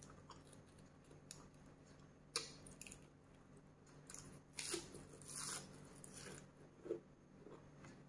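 Faint chewing and biting on a cabbage-leaf wrap of seafood: a few short, separate crunches spread through, over a low steady hum.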